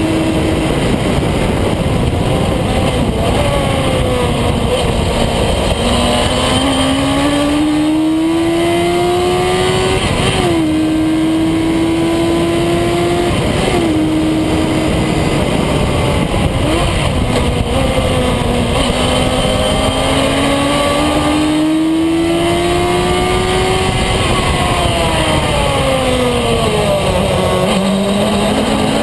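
Engine of a vehicle lapping a race circuit under hard use: its pitch climbs under acceleration and drops sharply at several gear changes, then falls slowly while slowing for a corner and rises again near the end, over steady wind and road noise.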